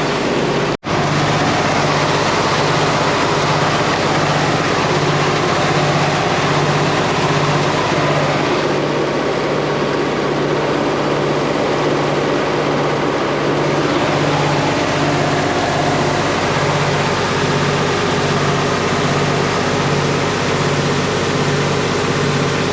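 Farm machinery running steadily, an engine or large fan with an even low pulsing hum, with a brief dropout about a second in.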